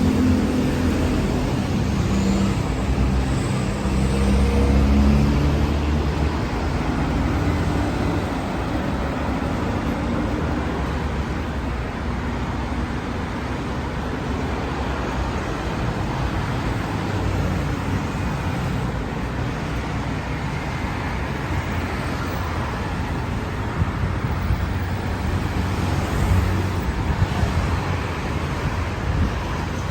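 Motor vehicle traffic with steady road noise; a low engine hum is strongest in the first few seconds.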